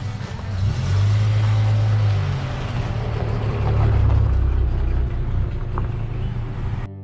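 1993 Ford Thunderbird Super Coupe's supercharged 3.8-litre V6 running with a deep, steady rumble that swells about a second in and again around four seconds in, then cuts off suddenly near the end.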